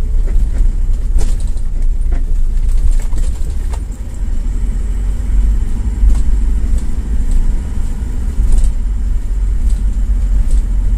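Car cabin road noise while driving: a steady low rumble from engine and tyres on a cracked, patched concrete road, with scattered light knocks and rattles.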